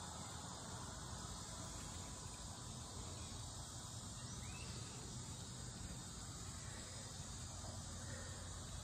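Steady high-pitched drone of insects calling in summer vegetation, over a low steady hum.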